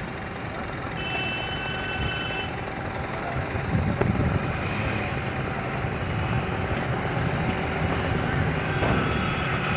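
Burning truck cab: the steady low roar of a large fire, growing slightly louder, with a sharp pop about four seconds in.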